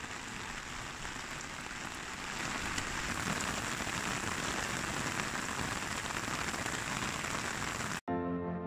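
Steady rain falling on a wet road and trees, an even hiss. It cuts off abruptly near the end and soft music takes over.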